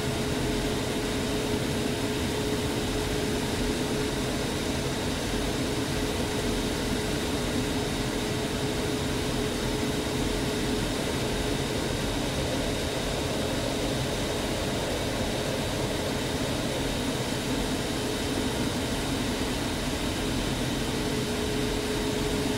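Steady cockpit noise inside an L-39 Albatros jet trainer in flight: the even rush of its turbofan and airflow, with a couple of held tones over it.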